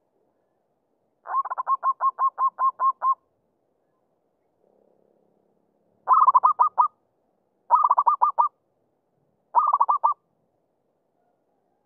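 Zebra dove (merbuk) song: a run of about ten quick, clipped coos a little over a second in, then three shorter bursts of rapid coos spaced roughly two seconds apart.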